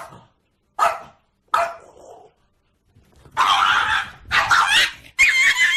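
Small dog barking: three short barks about a second apart, then, after a pause, a run of longer, louder barks in the second half.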